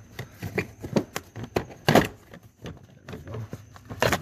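Plastic interior trim panel under the dash being worked loose and pulled off: a run of plastic clicks and knocks from the clips and panel, loudest about two seconds in and again near the end.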